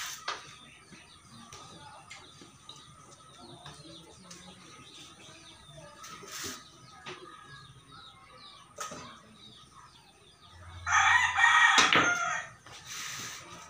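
A rooster crowing once, loud and about a second long, near the end, over faint background noise with a few sharp clicks earlier on.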